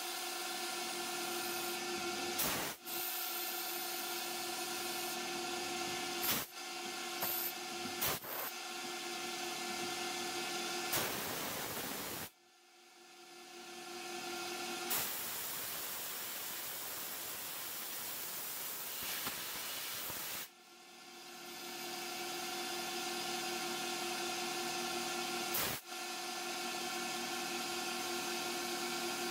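Hercus PC200 small CNC lathe running as it turns an acetal roller: a steady whine of the drive with several pitches, broken by a few sharp clicks. Partway through, the whine drops away and a hand-held compressed-air nozzle hisses for several seconds, blowing chips off the part, before the machine whine returns.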